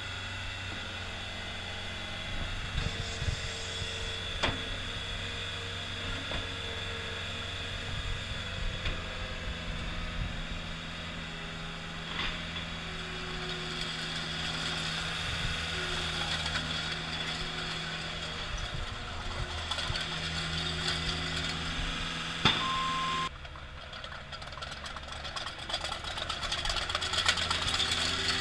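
CAT 252B skid steer loader's engine running steadily. About four-fifths of the way in there is a sharp click and a short beep, after which the running sound drops a little and turns duller.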